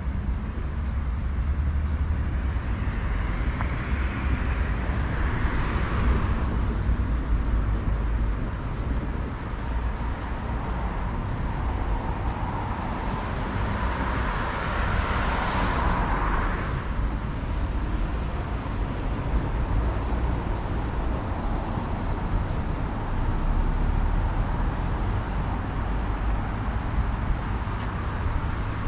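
Street traffic: two vehicles pass with a swell of tyre and engine noise that builds and fades, the first a few seconds in and a louder one about halfway through, over a steady low rumble.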